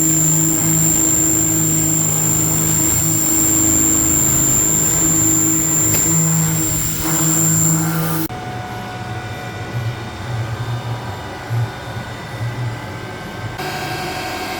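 UDM-2216 three-axis machining center milling steel: a steady spindle run with a high, constant whine over a lower hum. About eight seconds in it switches abruptly to a quieter, duller, more uneven cutting sound.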